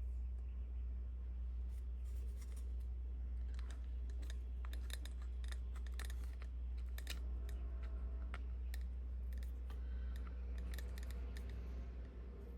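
Scattered clicks and short scrapes of the small metal parts of a watchmaker's jewel press being handled and fitted together, over a steady low hum.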